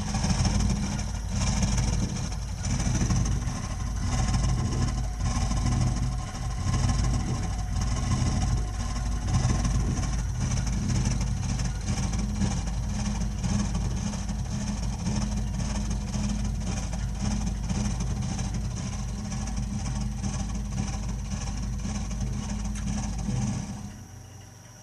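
Burnham Alpine ALP150W gas-fired boiler running with a strange, loud low rumble that swells and fades unevenly about once a second. The rumble cuts out abruptly near the end, leaving a faint hum.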